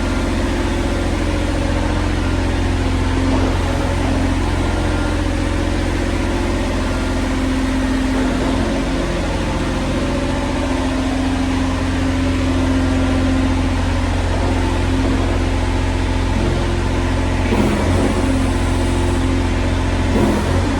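A John Deere 35G mini excavator's diesel engine running steadily, with a few brief knocks or shifts in its note in the last few seconds.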